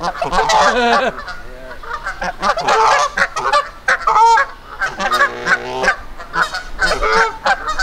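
Canada geese honking over and over in quick succession. These are angry, threatening honks at a person who has come too close, the lead goose ready to attack.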